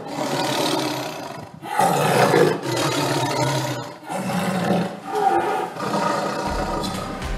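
Tiger roaring: three long roars one after another. Low music comes in near the end.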